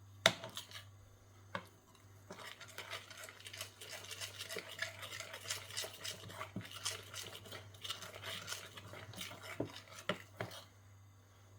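A utensil stirring thick besan batter in a bowl, with rapid scraping and clinking against the bowl. It starts with a sharp knock, the loudest sound, and another knock about a second and a half in, and there are a few more knocks near the end.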